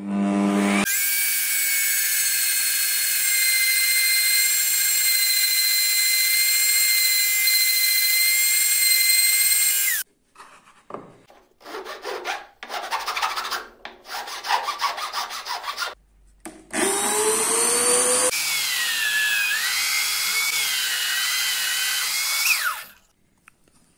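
Router table spinning up and running a steady high whine for about nine seconds while cutting a wooden piece. Then irregular rasping strokes of a hand file on wood. Then a drill press starts up and bores into wood, its pitch dipping and wavering under load, and it cuts off near the end.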